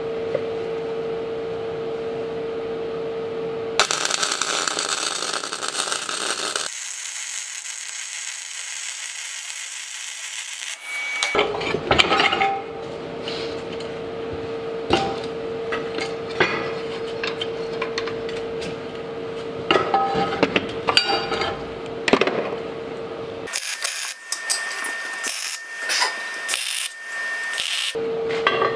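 Hand metalworking on steel vise parts, heard in several short cuts: steel clinking and knocking, rasping file strokes, and a stretch of harsh scraping noise, over a steady hum.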